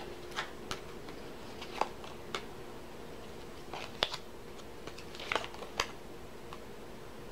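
Scattered light clicks and taps of cards being handled, about a dozen short ticks spread irregularly, over a faint steady hum.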